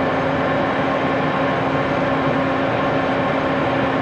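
Steady machinery hum with several held tones, even and unchanging throughout, like an electric motor or machine drive running.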